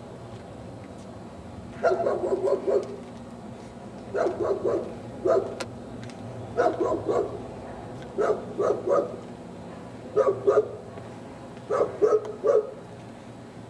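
A dog barking in quick runs of three or four barks, a run about every two seconds.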